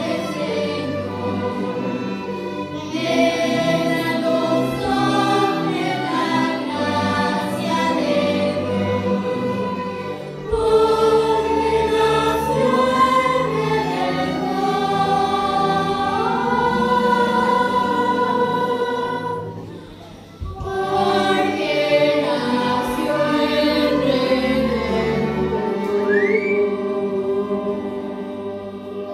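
A Christmas carol performed by a children's string orchestra, with voices singing along. The music drops away briefly about twenty seconds in, then resumes and eases off near the end.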